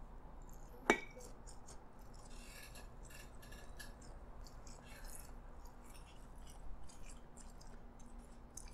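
Close-up chewing of fried lorbak (five-spice meat roll in beancurd skin), with many small crackly mouth sounds. A single sharp click with a short ring comes about a second in.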